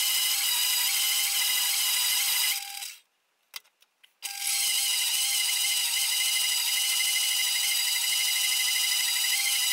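Metal-cutting bandsaw running with a steady high whine as an aluminium bar is turned against the blade and cut. The sound cuts off abruptly about three seconds in, leaving a second or so of near silence with a few clicks, then starts again at full level.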